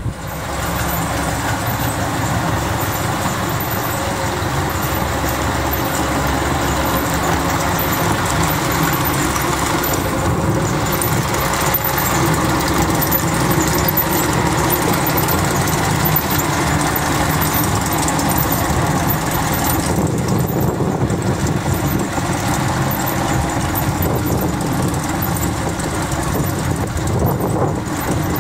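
A vehicle engine running steadily, with a constant rumble.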